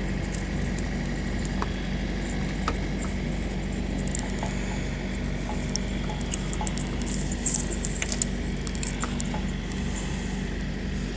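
Light clicks and small rattles of HID kit wires and plastic connectors being fed through a rubber headlight dust boot, thickest about two thirds of the way in, over a steady low hum.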